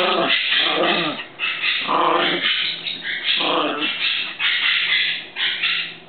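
A Weimaraner and a Yorkie growling at each other in play, a run of short growls with brief breaks between them.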